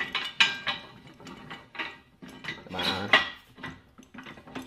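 Steel parts of a pipe bender clinking and rattling as a steel pivot pin is worked out of the steel frame by hand: a series of light metallic clinks with a short ring, and a longer metal-on-metal scrape about three seconds in.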